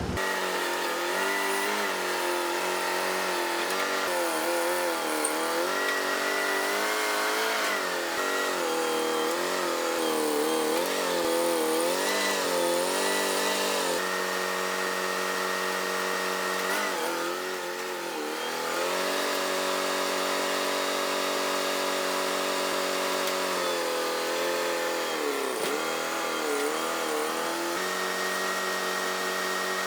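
Forklift engine running, its pitch rising and falling as it revs up and down while maneuvering a heavy load, holding steadier for a stretch in the middle.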